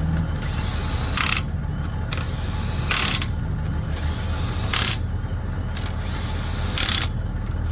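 Small portable air compressor running with a steady low hum while airing up a flat car tire, with four short noisy bursts about two seconds apart.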